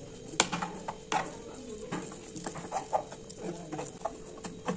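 Wooden spatula knocking and scraping against a nonstick frying pan while mixing food colour into a thick semolina dough, in irregular strokes several times a second. A faint steady hum runs underneath.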